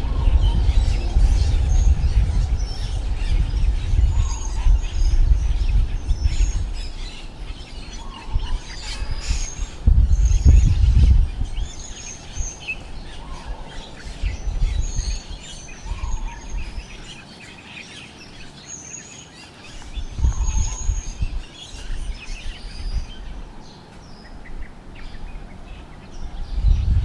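Strong wind gusting and buffeting the microphone in deep surges that rise and die away several times. Birds chirp repeatedly over it, short high calls recurring every second or two.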